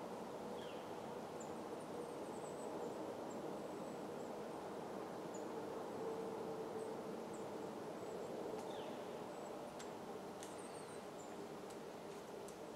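Quiet outdoor ambience: a steady low hiss with a faint hum, scattered faint high chirps, and two short descending calls. A few faint clicks come near the end.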